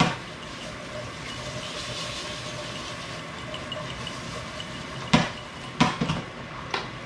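Steady hiss of potatoes frying in a skillet on the stove, with a few sharp knocks of kitchen utensils or dishes about five to six seconds in.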